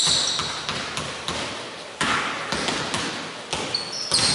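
Basketballs bouncing on a hardwood court, a string of irregular thuds that ring on in an echoing sports hall, with short high sneaker squeaks right at the start and again near the end.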